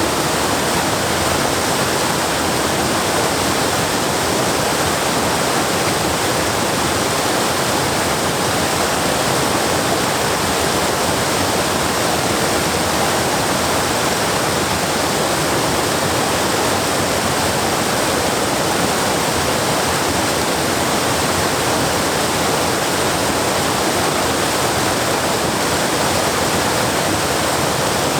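Waterfall: water pouring and splashing steadily, an even rushing noise with no changes.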